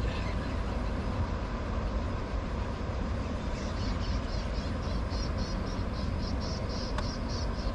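Steady low rumble, with a rhythmic high-pitched insect chirping of about three pulses a second starting about three and a half seconds in.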